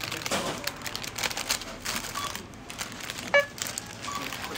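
Supermarket self-checkout: packaging and shopping bags crinkling and rustling, with scattered clicks and knocks. A little over three seconds in comes one short, loud checkout beep.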